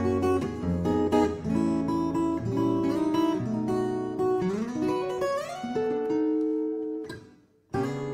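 Solo fingerstyle cutaway acoustic guitar playing a melody over bass notes. About two-thirds of the way through, a quick rising run of notes leads to a held note. Near the end the guitar stops briefly, then comes back in with a strummed chord.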